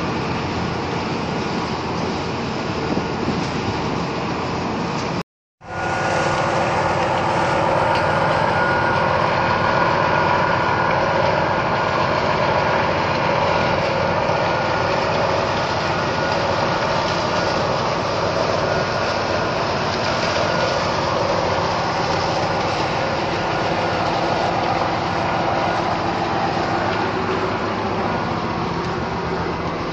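Steady drone of a ship's onboard engine machinery running with a constant hum, heard on the deck of a bunker tanker. The sound cuts out completely for a split second about five seconds in, then carries on unchanged.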